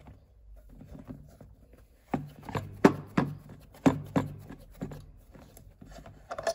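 Handling noise, then from about two seconds in a run of sharp clicks and knocks: the metal Open ECU tool pins being unscrewed and lifted out of the metal ECU case.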